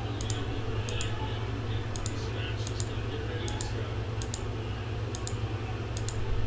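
Light clicks of typing on a computer keyboard, mostly in quick pairs about once a second, over a steady low hum.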